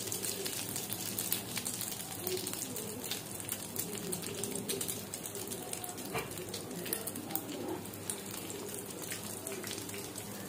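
Egg-dipped mutton cutlets shallow-frying in hot oil: a steady sizzle full of small crackles and pops.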